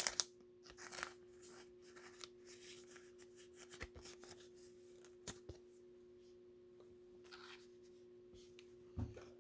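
Faint scattered rustles and light taps of trading cards and their packaging being handled, over a steady faint hum.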